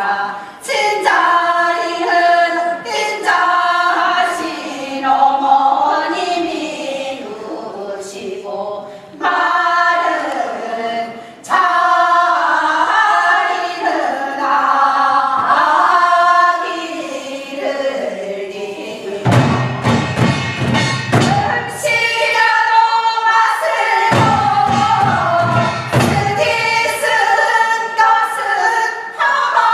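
A group of voices singing Gyeonggi hwimori japga, a fast Korean folk song in a recital, in unison with gliding pitches. Low thuds come in about twenty seconds in and again a few seconds later.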